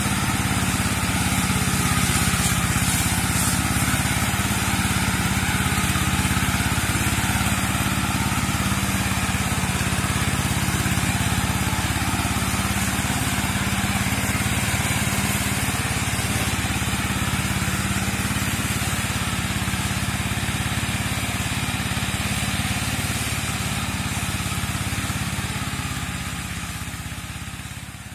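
Engine of a walk-behind land-clearing mower running steadily as the machine moves along, fading out near the end.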